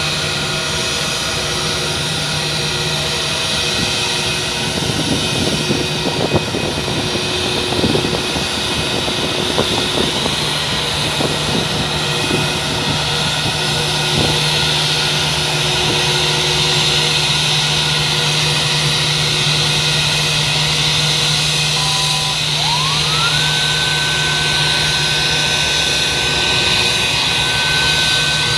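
Jet airliner engine noise: a steady hum and hiss with several fixed tones, and scattered knocks in the first half. A little after twenty-two seconds in, a whine rises in pitch and then holds steady.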